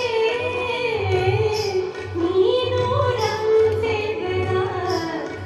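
A woman singing an Indian classical-style song in long, gliding held notes over instrumental accompaniment, played over the sound-and-light show's sound system.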